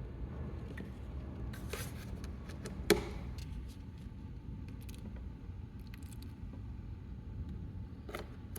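Small handling noises: light clicks and scrapes, with one sharp click about three seconds in, over a steady low hum.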